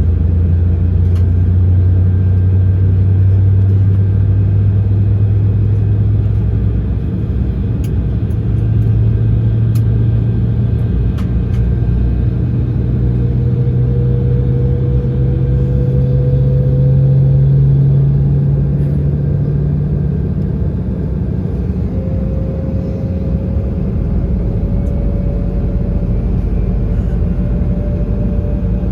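Cabin noise of an Embraer 170 airliner with its General Electric CF34 turbofans running: a steady rumble under a low engine hum. The hum climbs slowly in pitch, then falls back about two-thirds of the way through, with a fainter higher tone rising alongside it.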